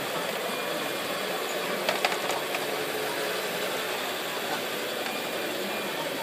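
Radio-controlled scale model truck driving, a steady mechanical running noise from its drive, with a few sharp clicks about two seconds in.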